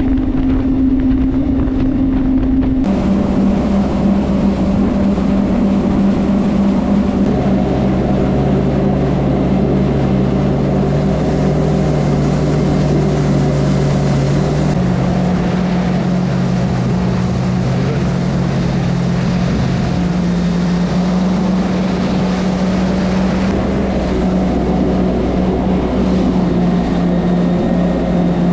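A Yamaha VX110 jet ski's four-stroke engine runs steadily under way, with the rush of spray and wind over it. About three seconds in, the engine note and the water noise change abruptly.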